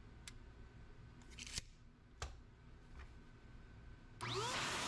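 A few light clicks, then about four seconds in an Adam's Mini Air Cannon handheld forced-air car dryer is switched on: its 1200-watt blower motor spins up with a rising whine into a steady rush of air.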